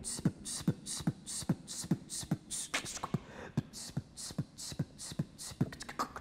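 Vocal beatboxing: a steady beat of mouth-made kick drum sounds, about two and a half a second, with hissing hi-hat and snare sounds between them.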